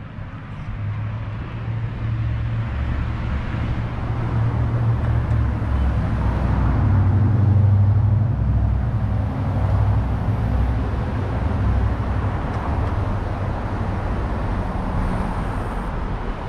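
Street traffic: a motor vehicle passing by with engine rumble and tyre noise. It grows to its loudest about halfway through, then slowly fades.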